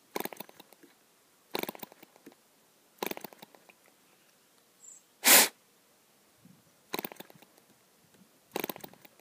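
PAW 1.5cc model diesel engine, muffler off, flicked over by hand about every second and a half. Each flick gives a brief rough run of a few pops that dies away: the engine is flooded with too much fuel. About five seconds in, one short, louder burst of noise is the loudest sound.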